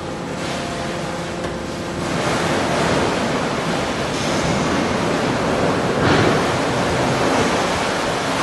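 Guillotine roll cutter and its roller conveyor running: a steady, dense rushing machine noise. A humming tone stops about two seconds in, the noise grows louder, and it peaks briefly about six seconds in.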